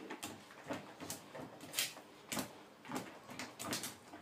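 Plastic Nina Ottosson Treat Maze toy scraping and knocking across ceramic floor tiles as a dog pushes and mouths it, in irregular strokes with the loudest a little under two seconds in.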